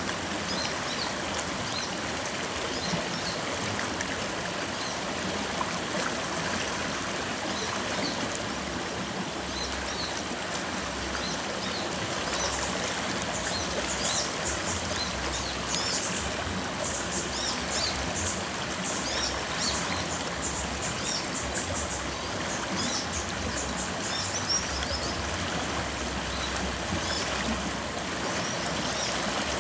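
River water flowing steadily over rocks, a continuous rushing and babbling. Small birds chirp quickly and often above it through the middle of the stretch, and a thin steady high-pitched tone runs along with it.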